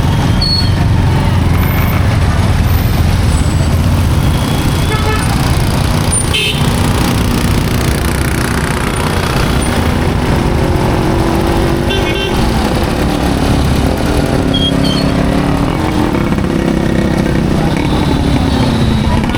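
Highway road traffic: a steady din of engines and tyres, with short horn toots about six and twelve seconds in. A vehicle engine hums louder through the second half, its pitch rising and then dropping near the end.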